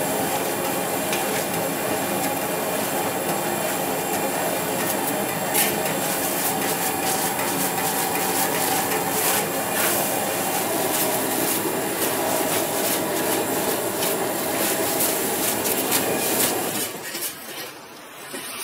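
Steady roar of a wok burner under a steel wok, with the horseshoe crab shell scraping and knocking against the metal as noodles are stir-fried. The roar drops away about a second before the end.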